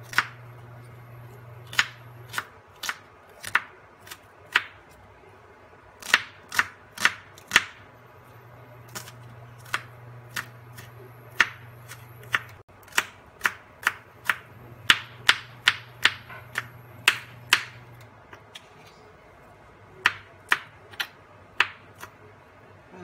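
Kitchen knife chopping red onion, then garlic cloves, on a wooden cutting board: sharp knocks of the blade against the board in runs of quick strokes, about two to three a second, with short pauses between runs.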